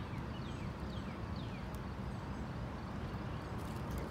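Outdoor background: a steady low rumble with small birds chirping faintly, a few short falling notes in the first second and a half.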